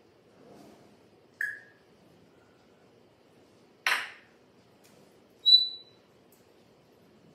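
African grey parrot giving short whistles: a brief one about a second and a half in and a louder, higher one past the middle, with a short scratchy call in between.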